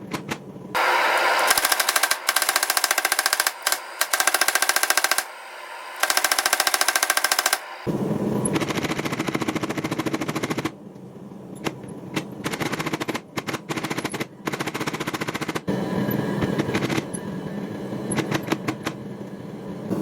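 Rapid, continuous hammer blows on steel during forging, many strikes a second in long runs with short pauses. The strikes ring bright and sharp at first and turn duller about eight seconds in.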